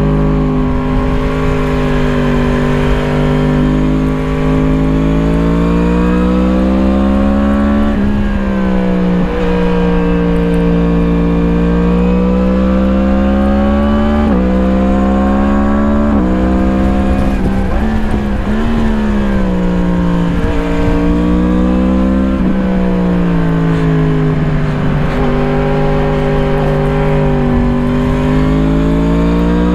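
2017 Yamaha MT-10's crossplane inline-four engine with an Akrapovič slip-on exhaust, heard on board while riding through corners: the exhaust note rises and falls with the throttle, with sudden jumps in pitch at gear changes several times, over steady wind and road rumble.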